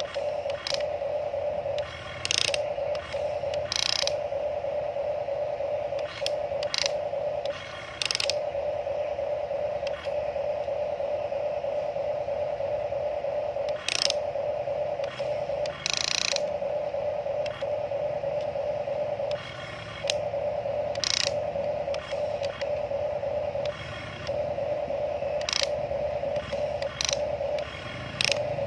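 Huina RC toy excavator's electric gear motors whirring in a steady whine that stops and restarts in short gaps. A burst of rattling, clicking gear noise comes every few seconds.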